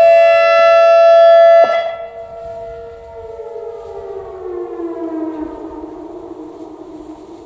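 ACA Alertronic AR-1600 electronic siren sounding a loud, steady tone that cuts off abruptly about a second and a half in. After it, a much fainter siren tone slides slowly down in pitch and fades.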